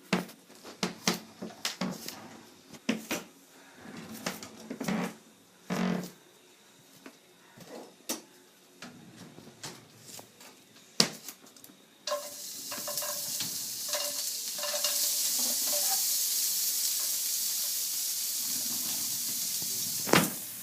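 Garlic frying in oil in a frying pan. The first part holds sharp clicks and knocks of a utensil against the pan. About twelve seconds in, a steady sizzle starts suddenly and runs on, with a few more light clicks in it.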